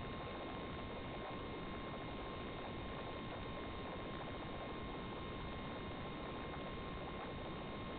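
Steady, unchanging hiss with a thin steady tone running through it, with no rise or fall as the truck drives: electronic static on the audio track of an analog FPV video recorder rather than any sound from the truck.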